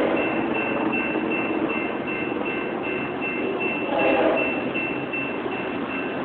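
Railroad crossing bell dinging steadily, about three strikes a second, as a train approaches. About four seconds in, the distant locomotive's horn sounds briefly.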